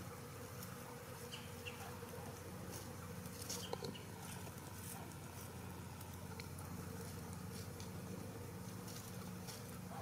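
A flying insect buzzing low and steady, fading in and out, with scattered faint ticks and rustles in dry leaf litter.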